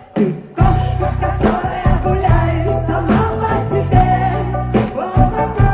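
Live rock band playing between sung lines. After a brief lull the full band comes back in about half a second in, with a heavy bass line and drum hits.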